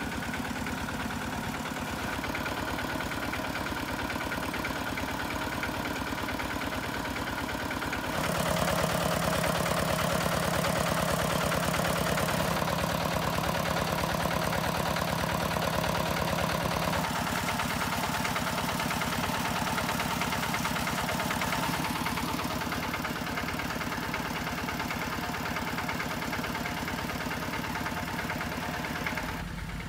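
An engine running steadily, a continuous hum that shifts in pitch and loudness a few times and is loudest in the middle stretch.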